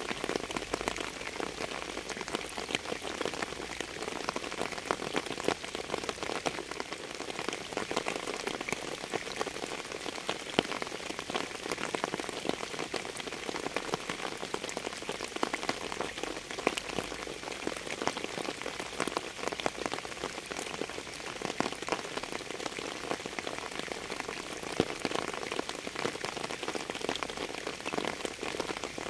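Steady rain falling on a surface, a dense, even hiss of countless individual drop hits with no change in strength.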